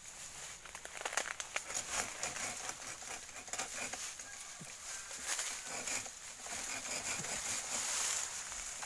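Dry bamboo stems and leaves rustling and crackling with irregular clicks and snaps as a bamboo clump is pushed through and handled, over a steady high hiss.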